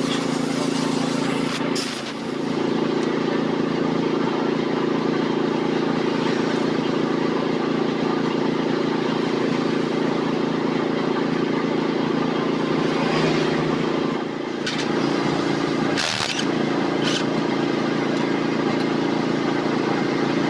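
An engine running steadily, its tone shifting slightly twice, with a short sharp clink about sixteen seconds in.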